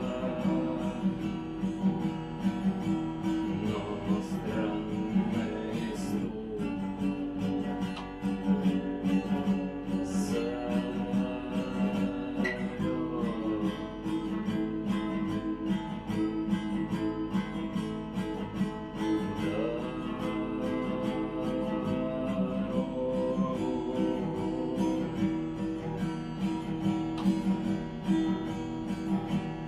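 Acoustic guitar strummed in a steady rhythm with percussive muted strokes, the 'стук' strum in which the strumming hand strikes and damps the strings for a sharp knock between chords.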